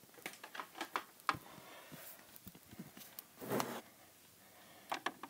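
Faint handling noises: scattered light clicks and taps as plastic Littlest Pet Shop toy figures and a plastic playset are moved about and the camera is handled.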